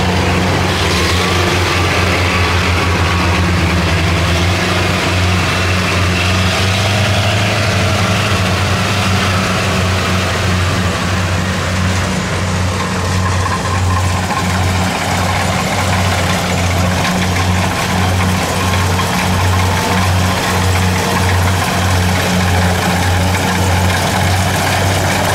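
Kubota DC70 combine harvester's diesel engine and threshing machinery running steadily, with a regular low pulsing about once a second.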